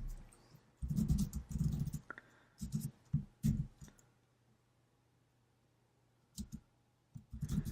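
Muffled computer keyboard and mouse clicks in two short clusters, then a few scattered clicks near the end, as a command is typed and run.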